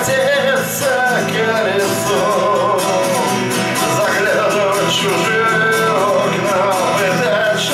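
Live song on a strummed steel-string acoustic guitar, with a man's voice singing along.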